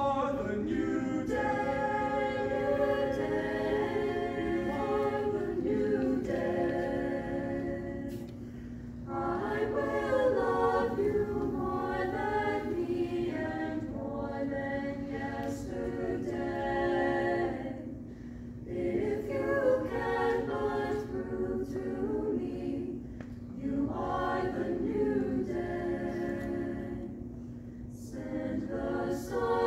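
Small mixed chamber choir singing a cappella in phrases, with brief breaks between them. A steady low hum runs underneath throughout.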